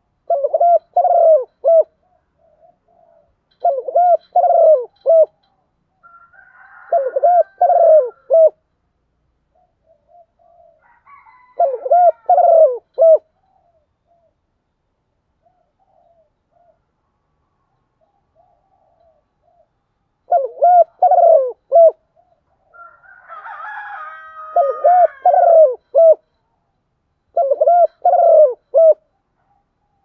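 Spotted dove cooing: short phrases of several low coo notes, repeated every few seconds with a long pause midway. This is the 'gọi một hậu' calling coo of a decoy dove, used to draw in wild doves.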